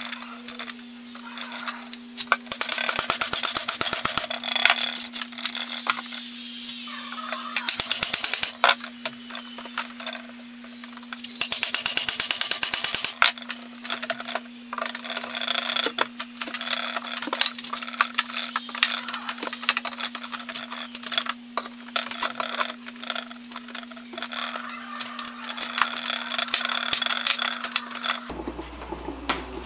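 Screwdriver levering and scraping between nailed wooden boards of a tool chest, in three bursts of rapid clicking and grating about a third, a quarter and two fifths of the way in, with scattered knocks between.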